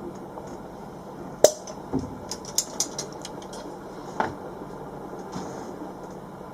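Sharp clicks and knocks from a silicone caulking gun being worked while a sealant bead is run along a shower tray: one click, a quick run of clicks a second later, then a single knock.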